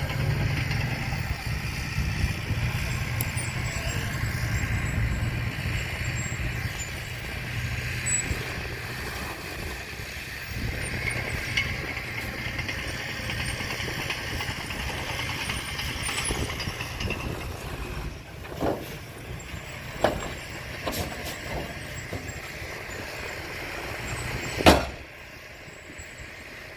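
A heavy vehicle's engine running steadily with a low rumble. Several sharp knocks come in the last third, the loudest one shortly before the engine sound drops away near the end.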